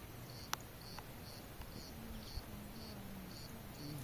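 An insect chirping steadily, short high chirps about twice a second, with a sharp click about half a second in.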